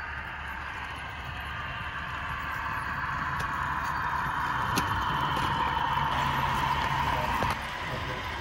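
Model train running on the layout track, a steady rolling and motor noise that grows louder as the train comes closer and drops off suddenly near the end.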